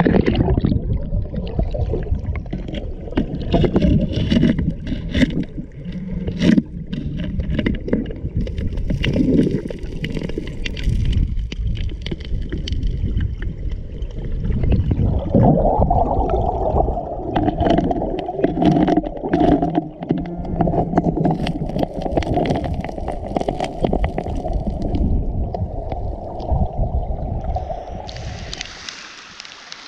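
Muffled underwater sound from a camera submerged in a river: a low rumble of moving water with scattered knocks and clicks, and a steadier drone joining about halfway through. Near the end it gives way to the steady hiss of rain falling on the river.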